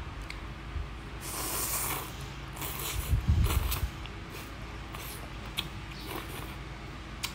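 A person slurping soupy rice noodles close to the microphone: two hissing sucks, about one and three seconds in, followed by a low bump and then a few small sharp clicks of eating.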